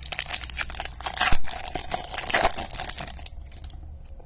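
Foil wrapper of a Topps baseball card pack being torn open and crinkled by hand. The crackling tear is loudest about a second in and again past the two-second mark, and dies away after about three seconds.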